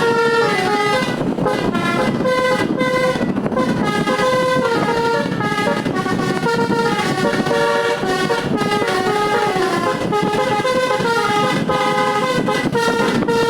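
Bus telolet musical air horn, a DAV multi-trumpet horn with roof-mounted trumpets, playing a tune of changing notes without a break, over a rumble of road noise.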